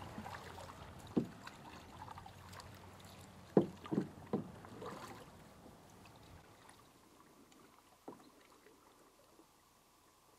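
Canoe being paddled, with paddles dipping and water dripping. Sharp knocks of a paddle against the canoe's side come once about a second in, three times in quick succession around four seconds, and once more near eight seconds.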